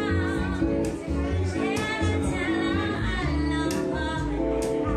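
A woman singing live into a microphone with a small band. Her voice wavers with vibrato over guitar and a low bass line, and there are a few sharp percussive hits.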